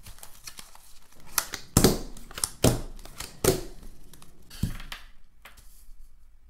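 Tarot cards being handled: several sharp papery slaps and rustles, the loudest about two seconds in.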